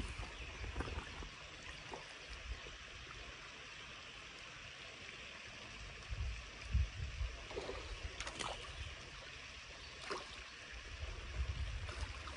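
Water sloshing and small splashes at the edge of a pond as a landing net is worked in the shallows, with a few sharper splashes.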